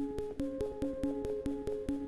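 Electronic background music with a fast, steady beat and a repeating synthesizer figure.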